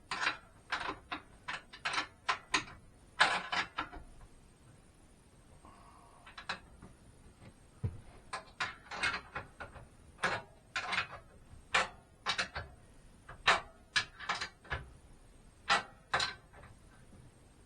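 Sharp, irregular clicks of a wrench tightening nuts and bolts. They come in two runs, with a quieter stretch of a few seconds between them.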